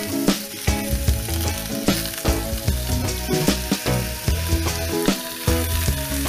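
Pork belly pieces sizzling as they sear over high heat in a dry frying pan while being turned with tongs, with background music and a bass line underneath.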